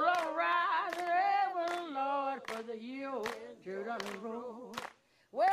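Unaccompanied singing voice holding long, slow notes with no instruments, breaking off briefly near the end.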